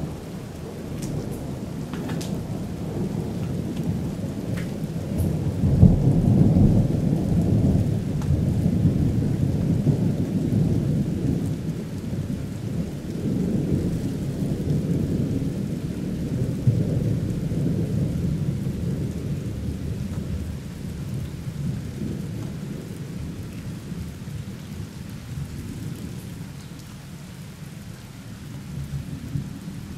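Thunder rolling in a long, continuous rumble over steady rain. It is loudest about six seconds in, swells again midway and eases off before building once more near the end.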